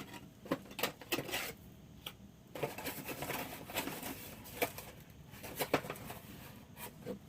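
Packaging being handled: scattered clicks and taps, with a longer stretch of plastic-bag rustling in the middle.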